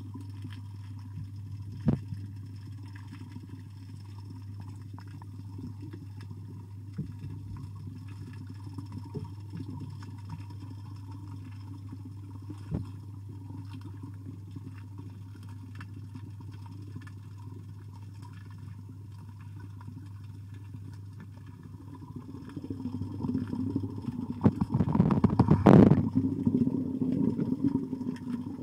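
Steady low hum heard underwater in a koi pond, with a few sharp knocks. A few seconds before the end, louder rumbling and knocking build up and peak as the camera is moved about.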